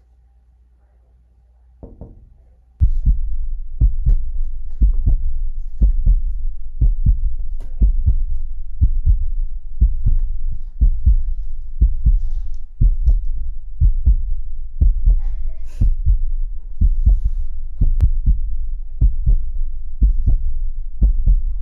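Deep, heavy thumping in a steady heartbeat rhythm of doubled beats, starting suddenly about three seconds in after near quiet.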